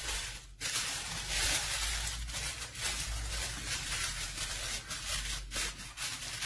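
Aluminium foil crinkling and rustling as hands press and crimp it tightly around the rim of a baking pan to seal it.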